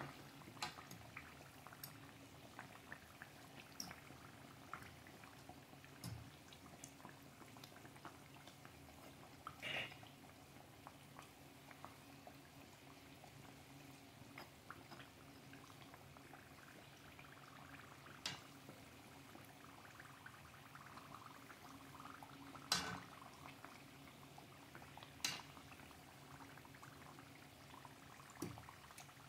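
Banana-and-cassava pancakes deep-frying in a pan of oil: faint steady sizzling and bubbling, with scattered sharp clicks and pops as the spoon turns them in the pan.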